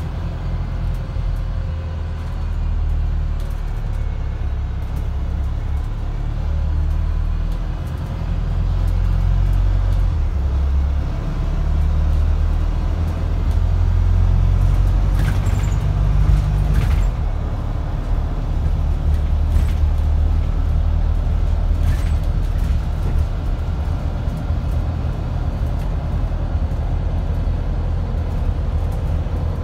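Wright StreetDeck double-decker bus under way, heard from the upper deck: a steady low engine and road rumble that grows louder through the middle as the bus pulls hard. A few sharp clicks of body rattle come in the middle.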